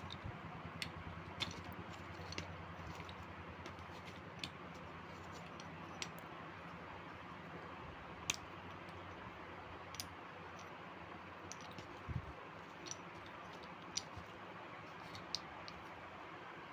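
Scattered light clicks and taps, about one every second or two, over a low steady background hiss: items being handled during unboxing.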